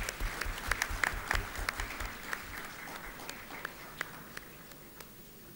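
Audience applauding: many hand claps, dense at first, thinning to scattered claps that die away near the end.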